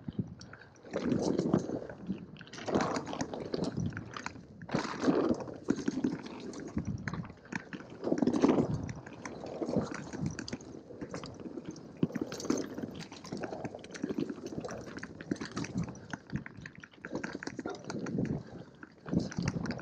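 Mountain bike running down a dirt trail: the tyres crunch over dirt and roots and the bike rattles, in uneven surges with many small ticks and clatters.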